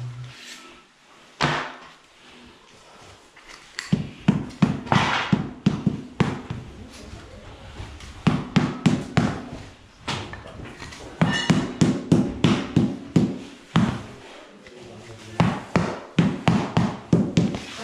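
Rubber mallet tapping herringbone wood floor planks down into the adhesive, in four runs of quick blows, several a second, with short pauses between.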